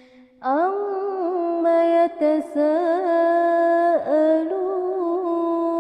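A single voice reciting the Quran in melodic tajwid style, holding long drawn-out notes with ornamented turns in pitch. It begins about half a second in, after a brief pause.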